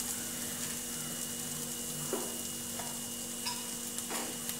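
Onion, tomato and spice masala sizzling gently in a stainless steel pan, with a metal spoon scraping and knocking against the pan a few times.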